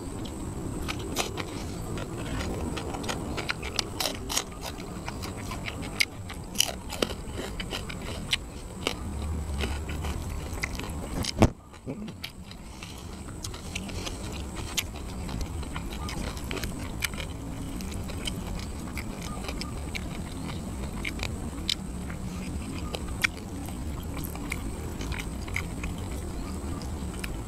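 Close-miked eating sounds: chewing and biting grilled catfish and papaya salad, with many small wet mouth clicks and smacks. A single sharp knock about 11 seconds in stands out as the loudest sound, over a steady low background rumble.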